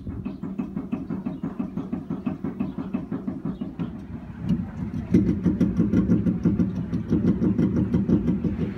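Rapid, repeated metallic knocking from the rear driveline of a 2016 Chevy Colorado Z71 as it is rocked back and forth, over a steady low drone. The knocking grows louder about five seconds in. The owner takes it for a knock inside the rear differential, but the dealer traced it to the recalled leaf springs.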